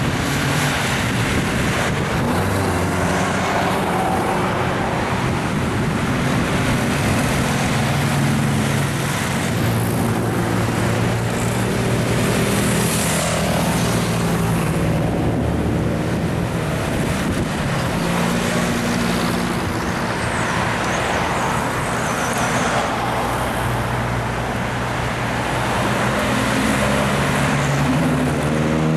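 Vintage and classic cars driving past one after another at low speed, a steady mix of engine notes and tyre noise on the road.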